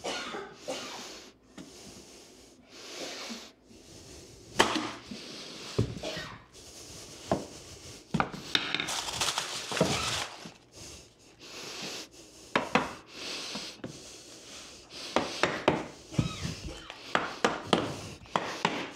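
Hardwood flooring being installed: sharp knocks of a mallet on the flooring nailer and on wooden planks as they are fastened and tapped into place. A couple of seconds of scraping come just past halfway, and a quick run of knocks comes near the end.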